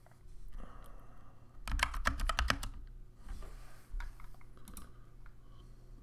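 Typing on a Skyloong AK84S 75% mechanical keyboard fitted with stock Chocolate Silver switches and GK1 PBT keycaps: keystroke clacks, loudest in a fast run about two seconds in, with sparser keystrokes after.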